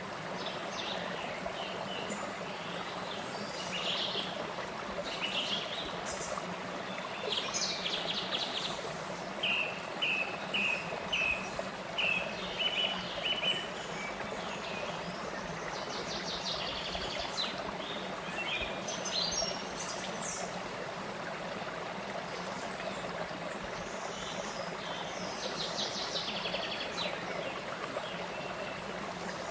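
Shallow stream running over low rock ledges in small cascades, a steady rush of water, with wild birds singing and calling over it; about ten seconds in, a bird gives a run of short repeated notes.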